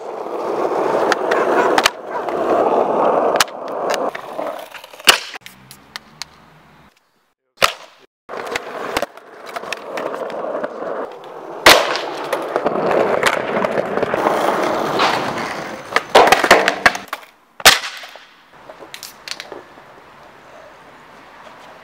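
Skateboard wheels rolling over hard ground, broken by several sharp clacks of the board popping and landing, the loudest about five seconds in. The rolling stops abruptly a few times where clips are cut together.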